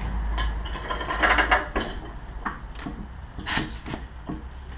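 Metal clicks and rattles of an air hose's quick-connect coupler being fitted onto the brass fitting on top of a home-made oil-priming tank, with a cluster of quick clicks a little over a second in and a louder burst about three and a half seconds in.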